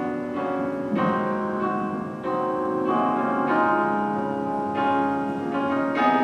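Slow instrumental piano music, held chords changing about once a second.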